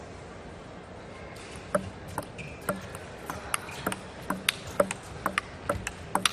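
Table tennis rally: the ball clicking in quick alternation off the bats and the table, about two to three clicks a second, starting about two seconds in after a quiet moment of hall ambience.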